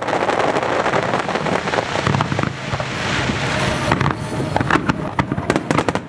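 Fireworks display: a continuous rumble of bursts with dense crackling, the crackle thickening over the last couple of seconds.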